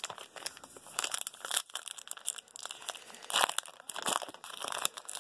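Trading-card pack wrapper crinkling irregularly as the pack is pulled from the box and handled, with its loudest crackle about three and a half seconds in.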